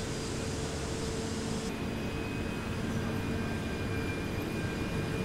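Steady industrial machinery noise: a continuous dense roar with faint steady hums and whines. Its character changes abruptly just under two seconds in, the hiss at the top dropping away and a higher whine coming in.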